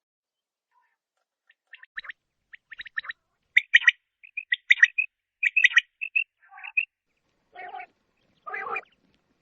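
Male quail calling: after a short silence, clusters of short, sharp notes repeat about once a second, then two lower, rougher calls come near the end.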